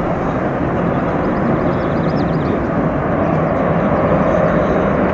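Jet airliner engines: a loud, steady roar of a passing airliner, slowly growing louder.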